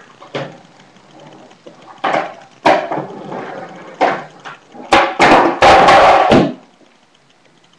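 Skateboard on concrete: wheels rolling between sharp knocks of the tail popping and the board landing, then, about five seconds in, a missed trick with the board clattering and rolling loudly for about a second before it stops suddenly.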